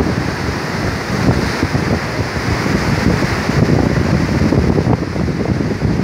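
Fraser River rapids rushing steadily, with wind buffeting the microphone.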